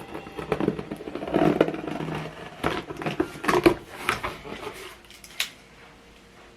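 Cardboard packaging being opened and handled: irregular scraping, rustling and knocks, dying down after about five seconds with one last sharp click.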